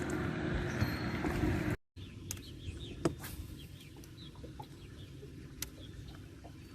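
A steady hum for the first two seconds, then, after a sudden break, quieter sound with short, high bird chirps repeating and a couple of sharp clicks.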